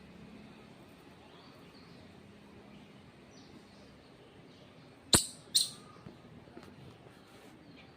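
Squirrel chirping: faint high chirps at first, then two loud, sharp chirps about half a second apart a little past the middle.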